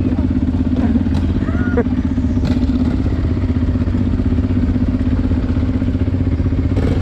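Honda Transalp 600's V-twin engine idling steadily, with a faint voice calling out briefly about a second and a half in.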